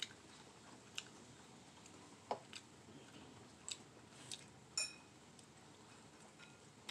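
Quiet close-up eating sounds: faint chewing, with a few soft clicks and taps as rice is pinched from a bowl by hand and eaten. The clearest tap comes about five seconds in.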